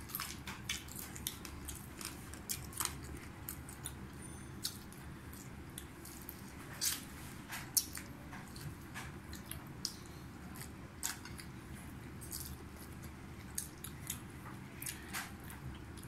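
People eating rice and curry by hand: scattered wet clicks of chewing and mouth sounds, a few sharper ones about seven seconds in, over a steady low background hum.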